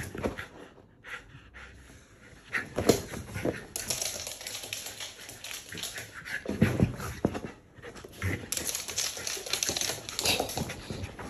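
Shiba Inu scampering about on a wooden floor, its claws clicking and scrabbling in irregular bursts, with rustling as it tugs at a plush dog bed.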